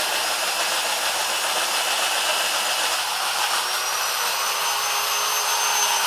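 Old 1970s electric drill running steadily while boring into hard braúna wood, its motor whine rising slightly in pitch about halfway through.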